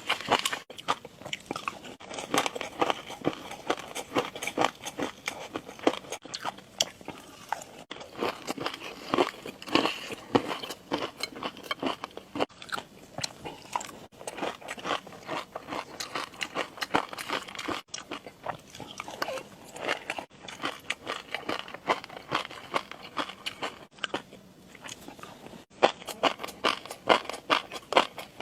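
Close-miked eating sounds: rapid, crisp crunching and chewing, with several abrupt breaks a few seconds apart where the audio cuts.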